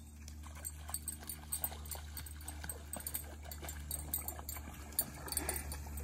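Rhodesian Ridgeback wading into shallow lake water, its steps making light, irregular splashes.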